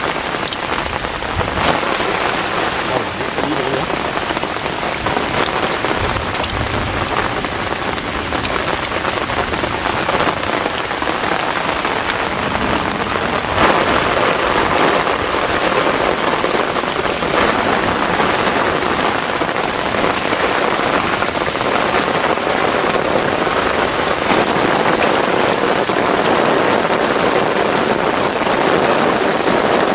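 Heavy rain pouring down steadily, with a single sharp knock about halfway through.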